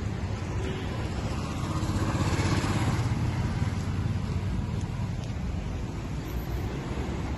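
Road traffic going by, cars and motorbikes, with one vehicle passing louder about two to three seconds in.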